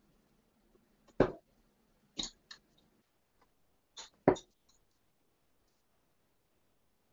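Darts striking a Unicorn Eclipse HD bristle dartboard: sharp thuds about one, two and four seconds in, the last the loudest, with a few lighter ticks between.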